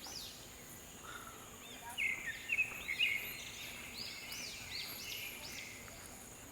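Tropical forest ambience: birds giving repeated short chirping calls, busiest about two to three seconds in, over a steady high-pitched insect drone.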